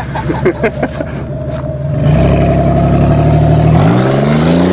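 A motor engine comes in loud about two seconds in and revs up, its pitch climbing steadily near the end as it accelerates.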